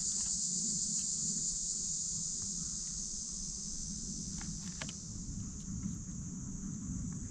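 Steady, high-pitched insect chorus over a low rumble, with a few faint clicks about four and a half seconds in.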